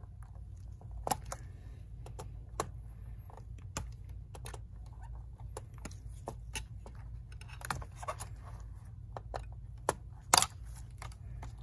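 Irregular small plastic clicks and ticks of a thin metal pry tool and fingers working the retaining tabs of a laptop keyboard to release it, with a louder click cluster near the end. A steady low hum runs underneath.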